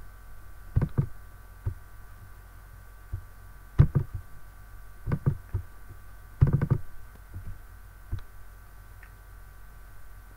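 Laptop keyboard keys pressed one at a time and in quick pairs, with a short burst of presses about six and a half seconds in, over a faint steady electrical hum.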